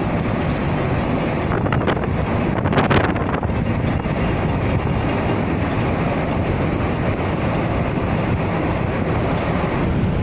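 Steady road noise inside a car moving at highway speed: tyre roar and engine, with wind buffeting the microphone. The noise grows briefly louder about three seconds in.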